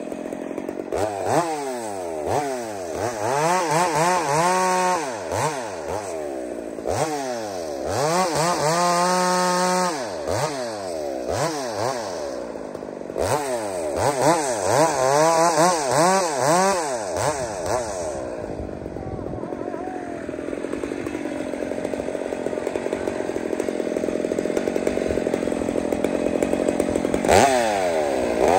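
Hybrid Husqvarna chainsaw revving and cutting into a large log in three bursts of a few seconds each, its engine pitch sweeping up and down. It then settles to a lower, steadier running for several seconds and revs up again near the end.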